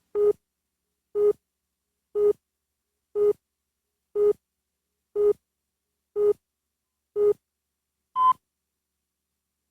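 Electronic beep tones: eight short, identical lower beeps about a second apart, then a single higher-pitched beep.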